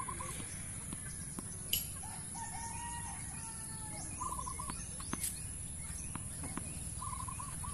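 A rooster crows once, one long call starting about two seconds in, with other short bird calls around it. Two sharp tennis-racket strikes on the ball come just before the crow and about five seconds in.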